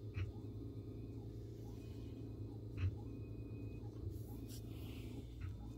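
Steady low background hum with a few faint, short clicks.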